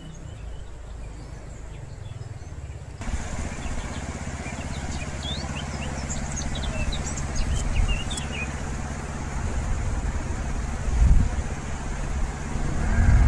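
Small birds chirping in short, quick calls for a few seconds in the middle, over a steady low rumble that swells twice near the end.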